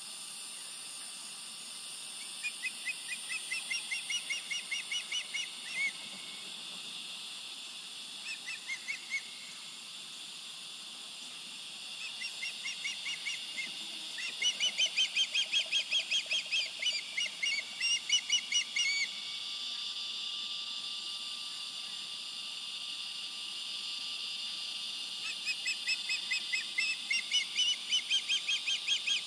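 Juvenile osprey giving territorial calls: bouts of sharp, whistled chirps at about four a second, each note rising and falling in pitch. There are four bouts, the longest and loudest in the middle and another near the end, with short pauses between.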